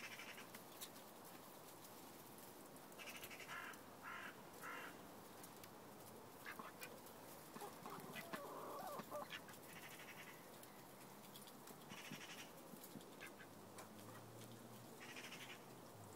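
Faint, short calls from domestic ducks and a chicken as they feed: a quick run of three or four about three seconds in, then single calls now and then, with light clicks as they peck.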